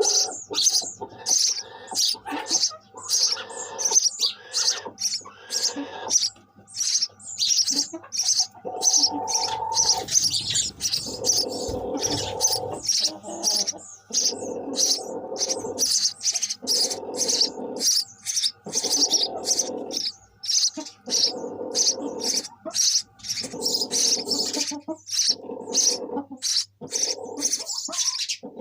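Sparrows chirping: a rapid, continuous series of short high chirps, two or three a second. From about a third of the way in, a lower sound about a second long repeats every second or two beneath them.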